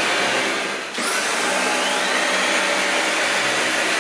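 Cordless stick vacuum cleaners running steadily. About a second in the sound dips briefly, then a motor spins back up with a rising whine.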